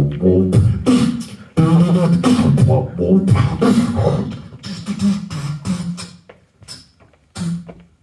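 Beatboxing into a handheld microphone: rapid kick and snare hits over a humming, pitched bass line. It thins out about five seconds in and ends with one last short phrase near the end.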